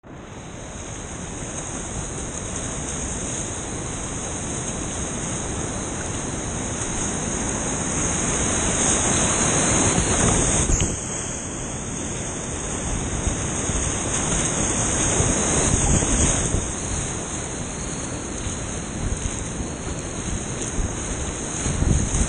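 Whitewater rapids rushing around a kayak: a steady, loud water noise that swells louder through the middle as the boat runs bigger waves, with short splashes from paddle strokes near the end.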